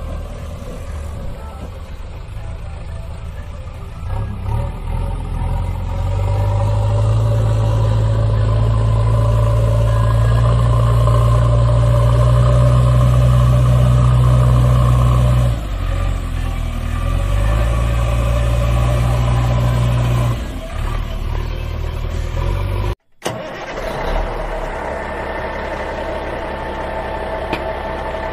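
Engine sound effect of a heavy vehicle laid over the footage, a steady low engine note that grows louder about a fifth of the way in and holds for several seconds. It drops back twice, cuts out for an instant about three quarters through, then goes on as a steadier running engine with a higher whine.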